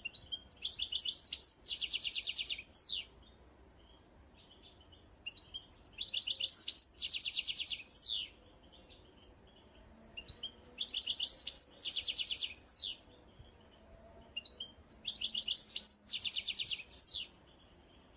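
A small songbird singing the same song phrase four times, each a fast high trill ending in a quick sweep, about every four and a half seconds.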